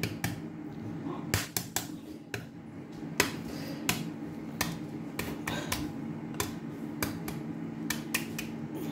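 Hard-boiled eggshell being cracked and picked off by hand: a run of small, sharp, irregular crackles and clicks over a steady low hum.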